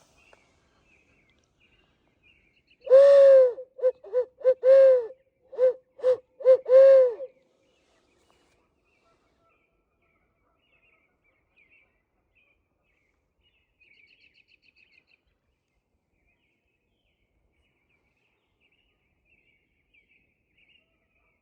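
Owl hooting from a turkey hunter's owl locator call: a loud run of about eight hoots over some four seconds, ending in a drawn-out hoot that falls away. It is sounded to make roosted gobblers answer, and here no gobble answers it.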